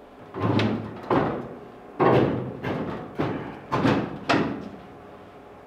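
Steel hood of a 1971 Chevy C10 pickup scraping and knocking as it is shifted by hand, in about six short bursts.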